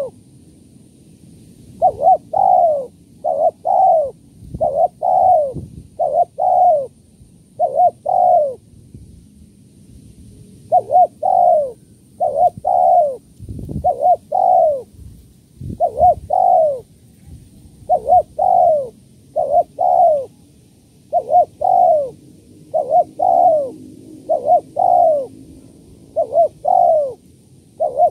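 Spotted dove (tekukur) cooing: short double coos repeated about once a second, with a longer pause about a third of the way in.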